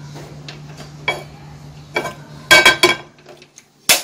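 Metal frying pan knocking and clinking on a gas stove's burner grate, with a quick run of sharp clinks about two and a half seconds in. Near the end there is one sharp click as the stove's control knob is turned.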